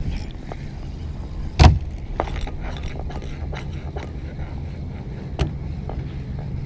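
Steady low rumble of distant road traffic, with scattered light knocks and clicks; a sharp knock about one and a half seconds in is the loudest sound, and another comes about five and a half seconds in.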